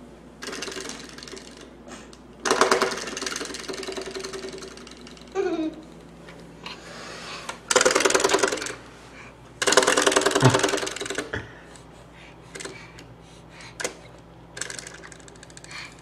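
A coiled-spring door stopper being flicked again and again, each flick a buzzing twang that dies away within about a second; the loudest come about two and a half, eight and ten seconds in.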